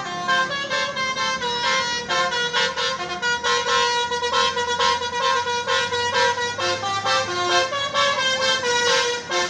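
Bus telolet horn playing a rapid tune of stepped, multi-tone horn notes in quick succession, with a low drone underneath from about four to eight seconds in.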